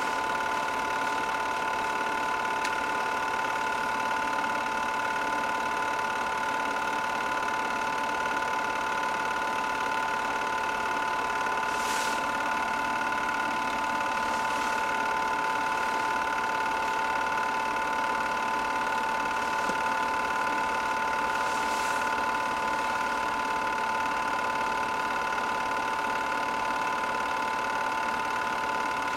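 8mm film projector running: a steady motor whine with an even mechanical clatter underneath, unchanging throughout.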